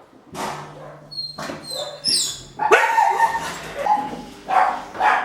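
A dog barking and yipping: a string of short, sharp barks from about halfway in, with a few thin, high chirps before them.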